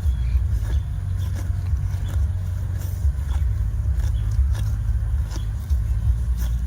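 Herd of cattle walking along a road: scattered light clicks and knocks of hooves over a steady low rumble.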